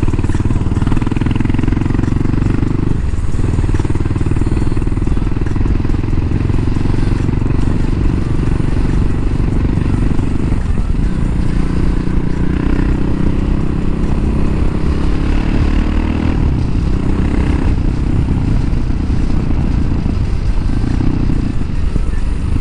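Suzuki DR 650 RS single-cylinder engine running under way. The engine note drops off briefly a few times and picks up again, over steady wind and road noise.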